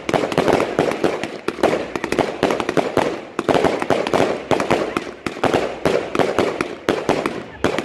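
A 99-shot Super Show 9 firework cake firing in rapid succession, with sharp launch and burst reports coming several times a second.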